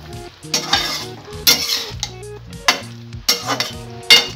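Metal spatula scraping and stirring chunky chanar bora and potato curry in a metal kadai, with five or six separate scraping strokes.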